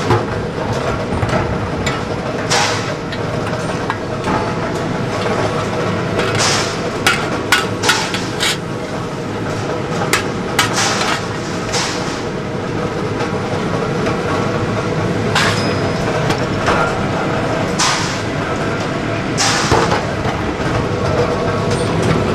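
Irregular sharp clanks of steel shovel blades being struck and formed, over a steady din of workshop machinery.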